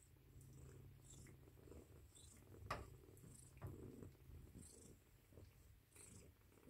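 Faint, steady purring of a Ragdoll cat in among her nursing kittens, with a couple of soft clicks partway through.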